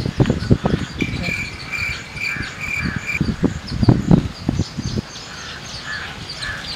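Insects and birds chirping: a steady high buzz lasting about two seconds and short chirps repeating throughout. Underneath are low knocks and rustles close to the microphone, loudest around four seconds in.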